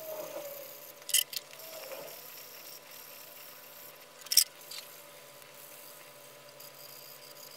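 Quiet hand sanding of a stabilized cork knife handle clamped in a vise, with a sharp double click about a second in and a louder click a little past the middle.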